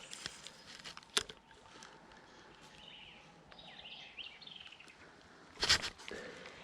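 Birds chirping faintly in short phrases over quiet outdoor ambience, with a sharp click about a second in and a louder brief knock near the end.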